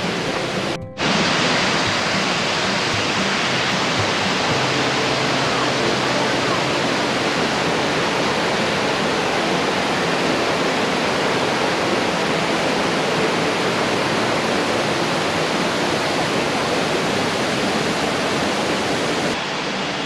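Mountain creek rushing and splashing over boulders and small cascades: a steady, even rush of water that starts abruptly about a second in.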